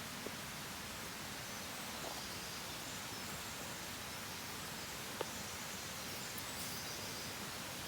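Forest ambience: a steady hiss with faint, distant bird chirps scattered through it and a small click or snap about five seconds in.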